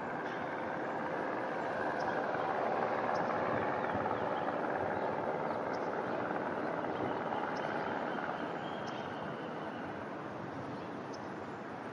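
Aircraft departing overhead, its engine noise swelling slightly a few seconds in and then slowly fading.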